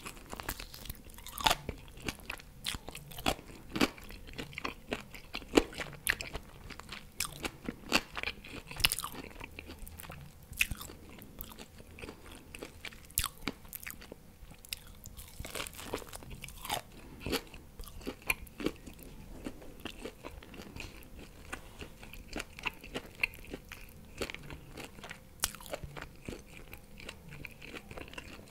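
Close-miked chewing and biting of barbecue pork ribs: irregular wet mouth smacks and crunchy clicks, several a second.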